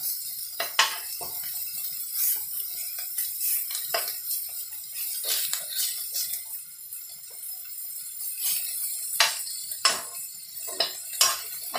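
Metal spoon scraping and clinking against a wok as chicken and chilies are stir-fried, over a steady hissing sizzle.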